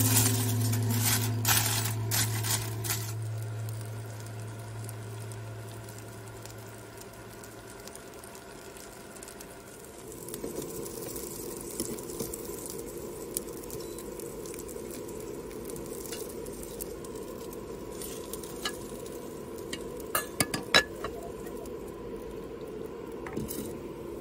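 Gyoza frying in a non-stick pan on a tabletop induction cooker: a steady low sizzle, with a metal spatula scraping and clicking against the pan and a cluster of sharp clinks about twenty seconds in.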